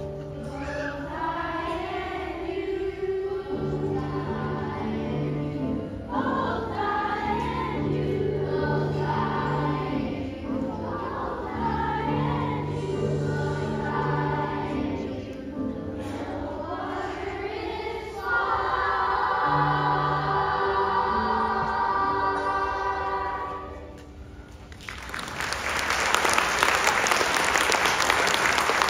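Children's choir singing with accompaniment, ending on a long held final chord, followed about 25 s in by audience applause.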